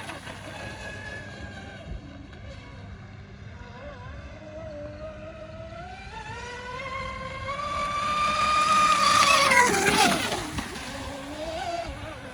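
Electric motor whine of a TFL Zonda RC catamaran running on 6S. The whine rises in pitch as the boat speeds up and comes closer, is loudest about ten seconds in, drops sharply in pitch as the boat passes, then fades.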